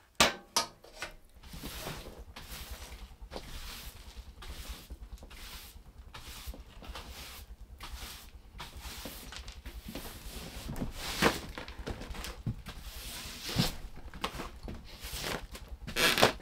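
A steel wood-stove door swung shut and latched with two quick metal clanks, then a broom sweeping a plywood floor in repeated short strokes.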